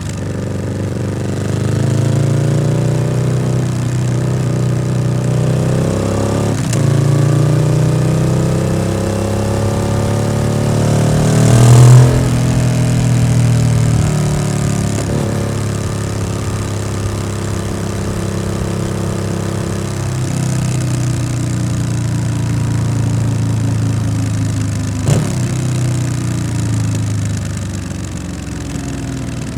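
Yamaha XSR700's parallel-twin engine running through an SC-Project aftermarket exhaust while riding. The revs climb, break with a gear change about seven seconds in, and climb again to the loudest point near the middle. Then they fall away and settle, with one more sharp shift-like break near the end.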